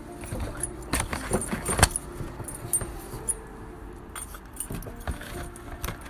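A puppy tearing and chewing at a cardboard beer case: irregular crackling, ripping and rattling clicks, loudest in a cluster of sharp snaps around a second or two in.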